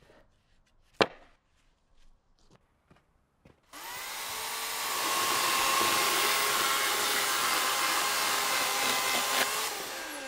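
A sharp knock about a second in, then an electric power saw starts and runs with a steady whine while cutting wood. Near the end the saw begins to spin down, its pitch falling.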